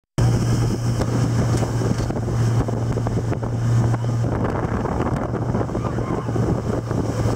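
Motorboat engine running steadily at speed with a constant low drone, under wind buffeting the microphone and the rush of water and spray.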